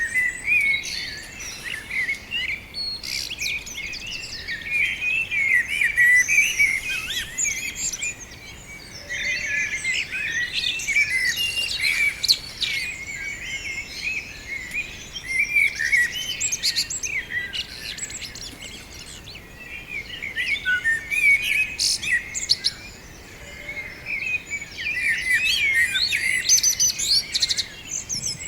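Many small songbirds chirping and twittering together in a dense, overlapping chorus of quick high notes, thinning out briefly a few times.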